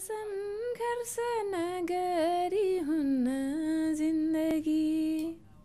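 A young woman singing solo in Nepali, unaccompanied, holding long steady notes; her voice stops near the end.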